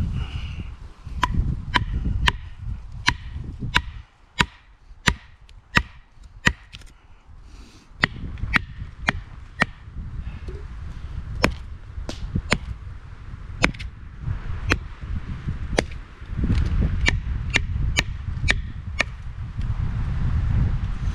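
Firewood being chopped and split with a bladed tool: a steady run of sharp strikes on wood, about two a second.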